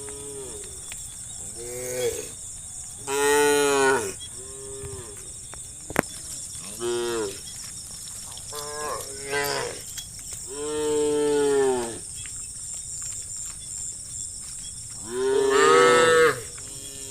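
Cows in a herd mooing: about seven separate calls of half a second to a second and a half each, the longest around 11 s in, the loudest about 3 s in and near the end.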